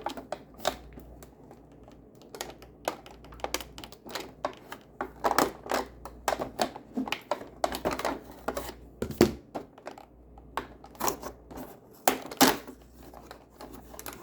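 Cardboard advent calendar and the small packaging inside being handled and opened: irregular clicks, taps and scrapes, a few louder knocks among them.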